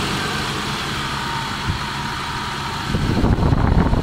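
Mercedes M111 four-cylinder petrol engine idling, with a louder rough burst for about a second near the end. The owner hears valve clatter in it, in an engine with a blown head gasket.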